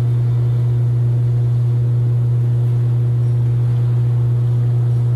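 Loud, steady low machine hum, like a running motor, unchanging throughout.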